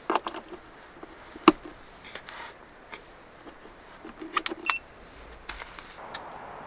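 A power cord's plug clicking and knocking into the AC outlet of a portable power station, followed by a button press and one short electronic beep from the unit about four and a half seconds in. A steady hiss sets in near the end.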